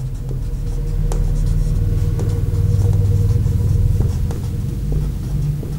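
Marker pen writing on a whiteboard, a scatter of light strokes and taps, over a steady low rumble that swells in the middle.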